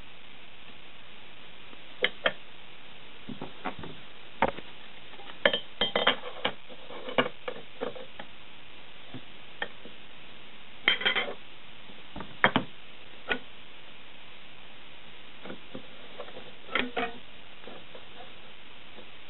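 Steel rule and steel angle clinking and tapping against a metal workpiece as gloved hands shift and set them in place: irregular sharp metallic clicks, some in quick clusters, over a steady hiss.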